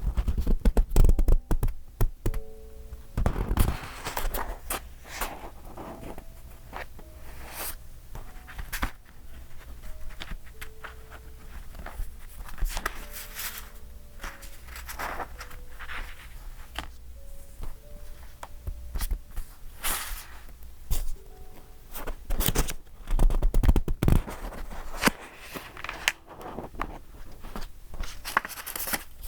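Pages of a thick, decorated paper journal being turned and handled: crinkly paper rustling with soft thumps and taps as pages fall and the book shifts.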